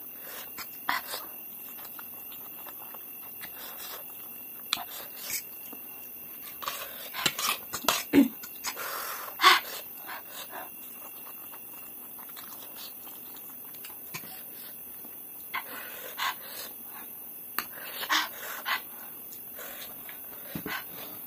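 Close-up eating sounds of spicy ramen noodles: slurping and chewing in irregular short bursts, loudest about eight to ten seconds in.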